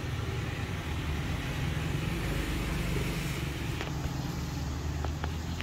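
Steady low rumble of road traffic, with a few faint clicks in the second half.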